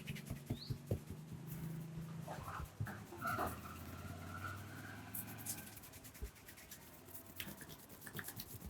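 Hands rubbing and scratching through hair and over the scalp in a head massage, with quick light taps or clicks in the first second and again near the end.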